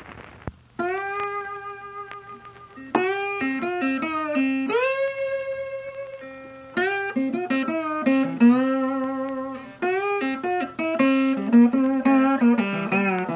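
Background instrumental music: a melody of plucked, ringing guitar notes, some held and bending slightly in pitch, beginning about a second in.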